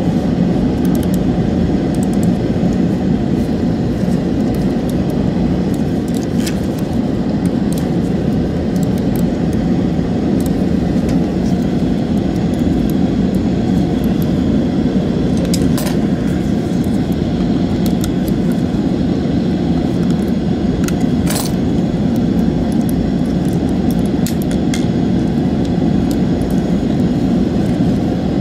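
Steady low rushing noise, with a few faint plastic clicks as the Logitech G502 Hero mouse is put back together.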